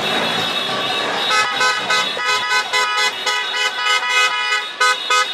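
Car horns honking in quick, irregular short blasts, starting about a second in, amid street noise from traffic held up in the road.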